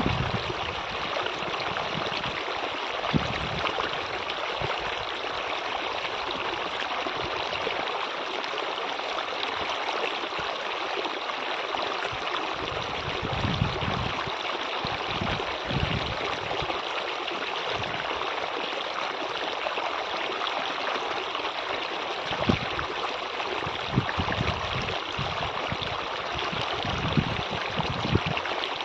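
Steady rush of running water from a stream, with a few soft low thumps here and there.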